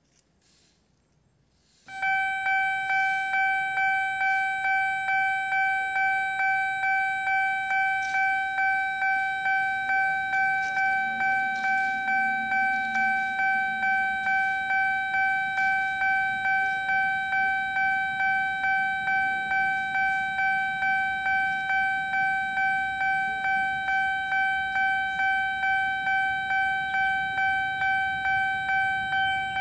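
Taiwanese railway level-crossing alarm giving its special electronic warning tone. It starts abruptly about two seconds in, then holds a steady high ringing tone that pulses evenly in loudness.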